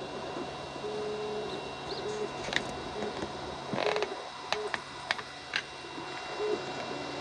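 Biqu BX 3D printer printing: its stepper motors sing short tones that jump in pitch with each move, over a steady fan hum. A few sharp clicks and a brief rasp come around the middle.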